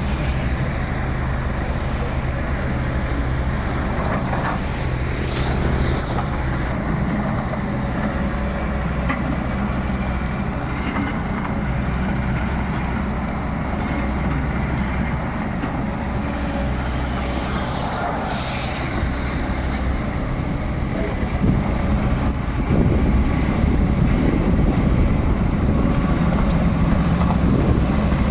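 Excavator's diesel engine running steadily, growing louder about three quarters of the way through as it works harder, with two short hissing rushes in between.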